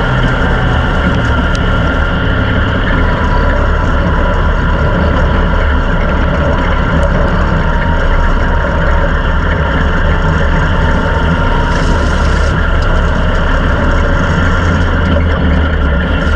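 Ministock race car's engine running steadily under way on a dirt oval, heard loud from the cockpit, with only slight changes in pitch and level as the throttle varies.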